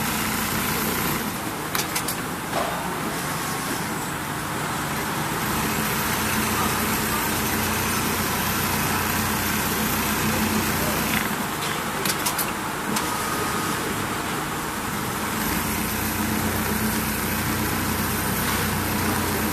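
JACK MS-90 programmable pattern sewing machine running steadily, its needle head stitching along a template. A few sharp clicks come about two seconds in and again around twelve seconds in.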